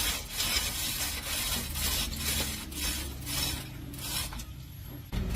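Repeated rasping strokes of hand work on a metal part, about two to three a second, over a low steady hum.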